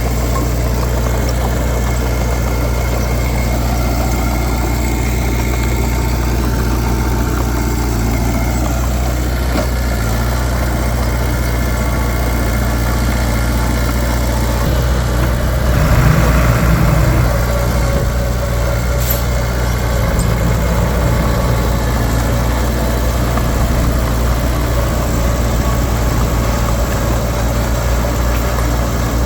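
Heavy diesel earthmoving machine engine running steadily, with a brief rise in loudness about sixteen seconds in.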